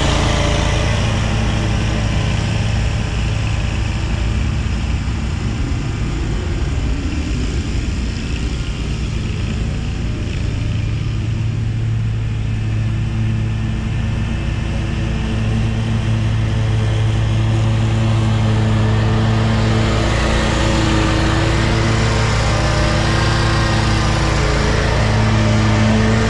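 Riding lawn mower engine running steadily, a continuous drone that eases somewhat in the middle and then comes back up.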